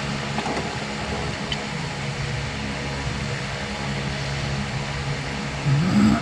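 Steady machine hum with a few faint clicks; just before the end a louder sound rises and then falls in pitch.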